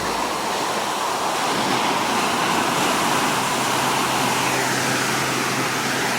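Ocean surf: the steady rush of big waves breaking, with no clear single crash.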